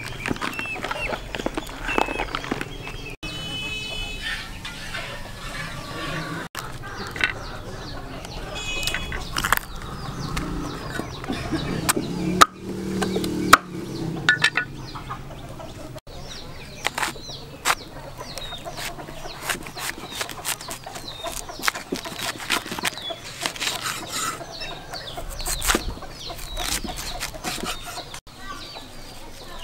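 Cleaver cutting banana blossom on a wooden chopping board: a run of short sharp knocks, thickest in the second half. Chickens cluck in the background.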